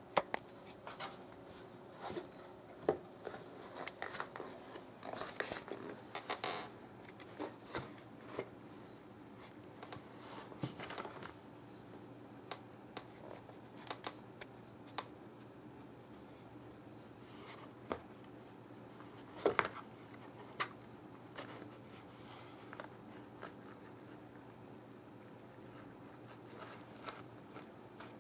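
A cat scratching and worrying at an empty cardboard box: irregular scratches, scrapes and light taps, busiest in the first half and again about twenty seconds in.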